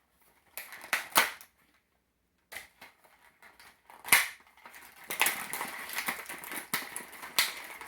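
Plastic toy packaging and small plastic parts being handled: a few sharp clicks and taps, then steady crackling and clicking from about five seconds in.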